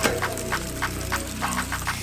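Background music with a quick ticking beat.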